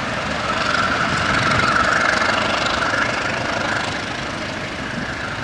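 Empty Transnet freight train rolling away along the track, a steady rumble with a higher ringing note in it that swells about two seconds in, then slowly fades as the train draws off.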